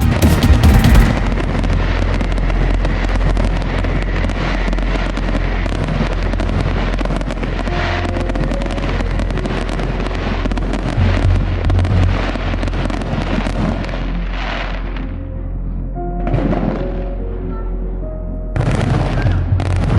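Fireworks bursting and crackling in a dense, continuous barrage, with music playing underneath. The crackle thins out briefly about three quarters of the way through, then picks up again near the end.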